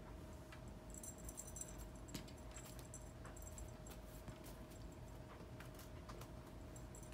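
Faint jingling and scattered light ticks and rustles from a feather cat-teaser wand being flicked across carpet and through a mesh net, with the jingling strongest between one and two seconds in. A faint steady hum runs underneath.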